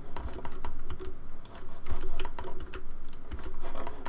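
Computer keyboard keys pressed in quick, irregular clicks, as keyboard shortcuts are struck.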